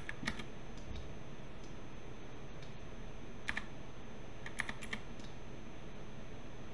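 Computer keyboard and mouse clicking in small groups: two clicks at the start, two about three and a half seconds in, and three quick ones just before five seconds, over a steady hiss.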